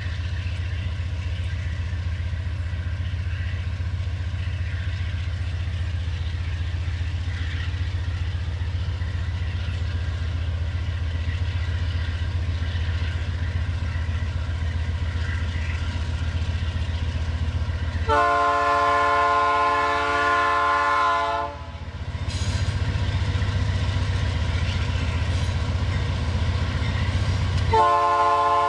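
Diesel freight locomotives approaching with a steady low engine rumble. The air horn sounds for about three and a half seconds roughly two-thirds of the way in, then starts again near the end.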